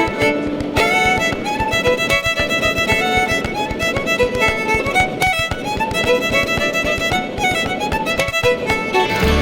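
Background music led by a fiddle, playing a quick melody over a busy, fast rhythm.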